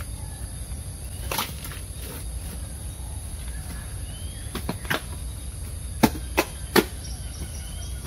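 Hoe digging wet mud out of a drain: a few soft strikes, then three sharp knocks about a third of a second apart near the end, the loudest sounds. A steady high insect drone and faint bird chirps run underneath.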